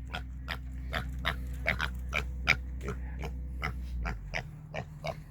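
A pig making a quick, irregular run of short sharp sounds, roughly four a second, over a low steady hum that stops about four seconds in.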